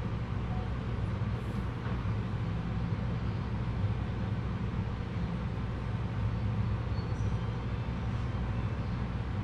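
Steady low rumbling hum of room background noise, with no distinct events.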